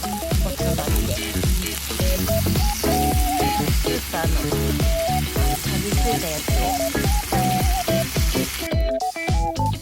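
Food sizzling as it fries in a pan, an even hiss that stops shortly before the end, under background music with a steady beat.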